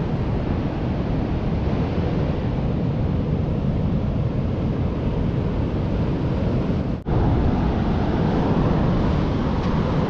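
Wind rumbling on the microphone over the steady wash of breaking ocean surf. The sound cuts out for an instant about seven seconds in.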